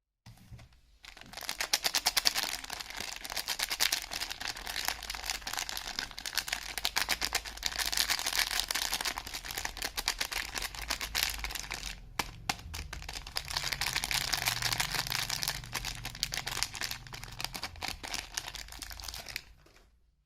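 Soap packaging being unwrapped by hand: a wrapper crinkling and rustling continuously, with a brief pause about twelve seconds in.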